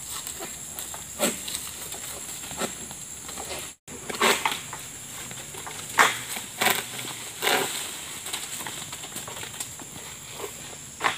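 Long-pole harvesting sickle (SBL M222A) working in the crown of a tall oil palm: an irregular string of sharp rustles and cracks as the blade hooks and cuts the fronds, the loudest about six seconds in. A steady high insect drone runs underneath.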